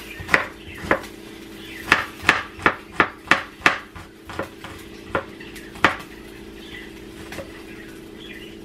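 Kitchen knife chopping garlic cloves on a wooden cutting board: sharp, irregular knocks of the blade on the board, about three a second at their busiest, thinning out in the second half. A steady low hum runs underneath.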